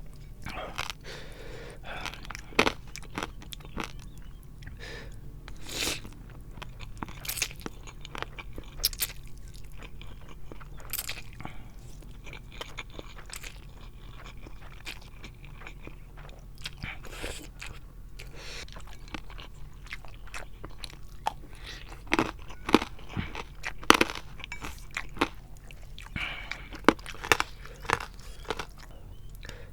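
Close-miked eating of spicy instant noodle soup: steady chewing and biting with irregular sharp crunches and mouth clicks, which are loudest and most frequent near the end.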